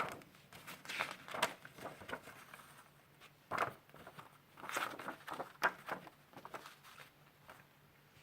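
A CD jewel case and its paper booklet being handled: a sharp plastic click at the start, then irregular rustling and light knocks, fading out near the end.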